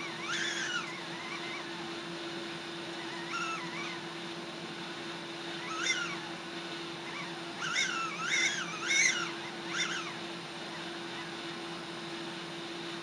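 A cat meowing: about seven short meows, each rising and falling in pitch, with four in quick succession in the second half.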